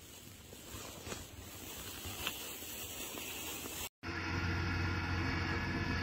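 A faint steady outdoor hiss with a couple of small clicks. After a cut about four seconds in, a compact front-loader tractor's engine runs steadily, heard from indoors through a window.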